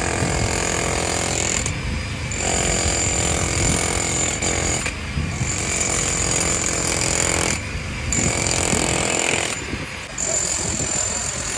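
Handheld electric demolition hammer chiselling a concrete slab, running in bursts of about two seconds with short pauses between them.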